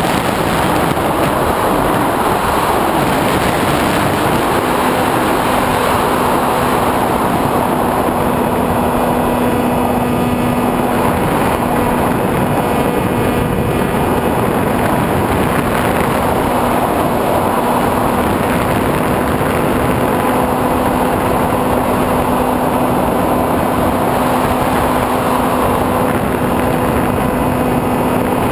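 Wind rushing over the onboard camera of a SkyWalker 1900 FPV plane in flight, with the steady hum of its electric motor and propeller coming in about four to five seconds in.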